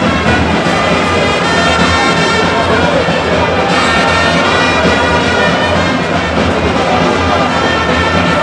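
Loud, steady music with brass instruments.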